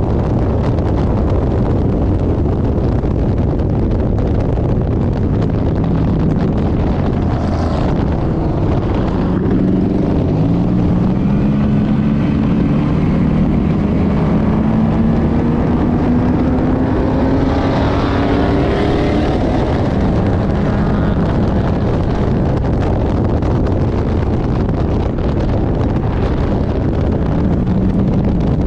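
GM-engined Lemons race car running at speed on track, heard with heavy engine, road and wind noise. Between about ten and twenty seconds in, an engine note climbs steadily as it pulls up through the revs.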